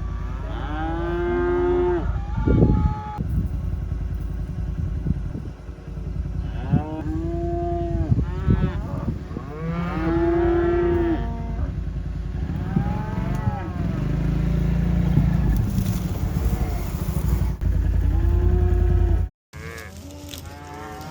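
A herd of beef cows mooing, one long call after another and sometimes several at once, over a steady low rumble. The sound cuts off abruptly near the end and comes back quieter.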